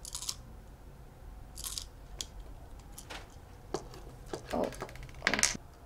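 Small plastic toy dog and its tiny plastic bones being handled and pressed together: a scattered run of light clicks, taps and scrapes, a few of them louder near the end.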